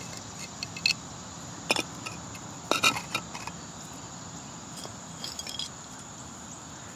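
Flat stones knocking and clinking against each other as they are set into a dirt pit: a few sharp clacks in the first three seconds and fainter ones later. Behind them, a steady high insect drone.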